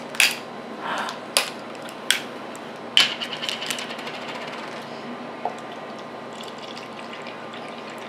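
Plastic screw cap being twisted off a Gatorade bottle: several sharp clicks, then a quick run of ticks about three seconds in.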